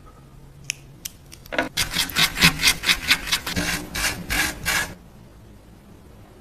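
Rapid back-and-forth rasping strokes of hand abrasion on a metal workpiece, about four a second. They start about one and a half seconds in and stop about five seconds in.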